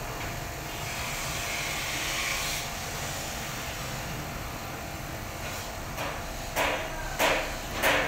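Metal parts of a diesel injection pump plunger element being handled and fitted together: four short metallic clicks and scrapes in the second half, over a steady background rumble.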